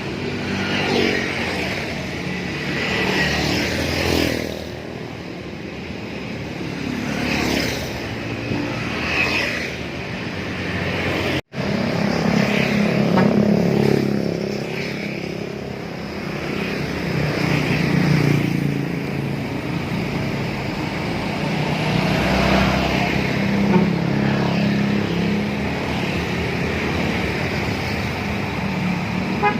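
Large intercity buses and road traffic running past on a busy road, the engine rumble swelling and fading as vehicles go by, with the sound dropping out for an instant about eleven and a half seconds in.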